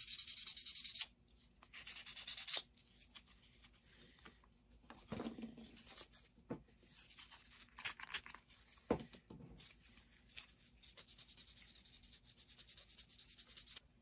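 600-grit wet/dry sandpaper rubbing quickly back and forth over a plastic model part's seam, stopping about a second in. Then scattered light rubs and clicks of the plastic parts being handled and set down.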